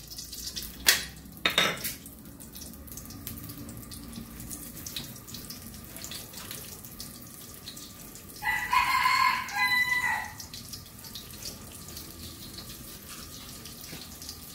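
Butter melting in a little hot oil in a steel wok over a gas flame, with a faint steady sizzle; two sharp taps about a second in as the last of the butter is knocked off the utensils. About eight seconds in, a rooster crows once for nearly two seconds, the loudest sound.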